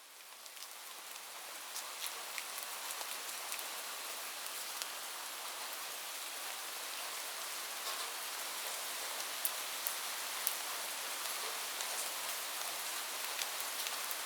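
Light rain falling: a steady soft hiss scattered with individual drops ticking. It fades in over the first couple of seconds, then holds steady.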